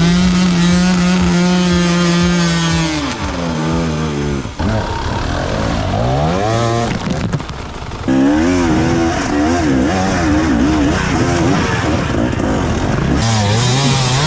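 Dirt bike engines revving hard: held high and steady at first, then rising and falling in pitch, with abrupt changes a few times between bikes.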